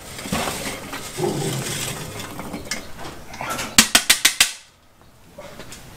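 Lit charcoal being raked and spread across a kettle grill's charcoal grate with a metal tool, scraping and rattling. About four seconds in comes a quick run of sharp metallic clinks, then it goes much quieter.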